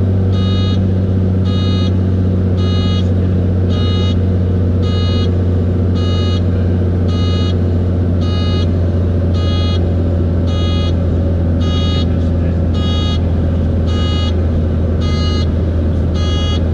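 Light aircraft engine and propeller drone heard inside the cabin of a Beechcraft Bonanza, steady and loud, with a short electronic warning beep repeating evenly a little under twice a second.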